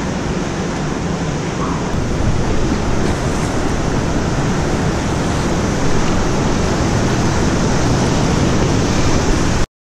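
Steady rushing roar of a large whitewater rapid just ahead on the river. It grows a little louder about two seconds in and cuts off suddenly near the end.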